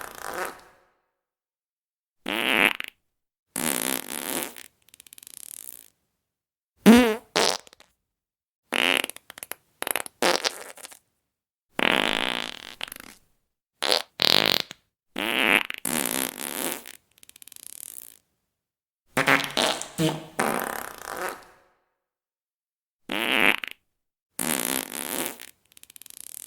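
A string of separate fart sound effects, around eighteen in all, each lasting a second or less, with short silent gaps between. Some are buzzing farts with a wobbling pitch, others are airy, hissing ones.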